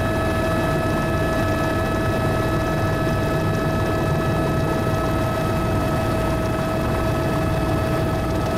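Helicopter in steady flight, heard from on board: a constant low rumble with a steady high whine at several pitches on top, unchanging throughout.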